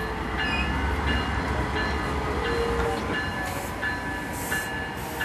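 Amtrak passenger train rolling slowly past, its coach wheels rumbling on the rails, with short high squeals from the wheels coming and going several times.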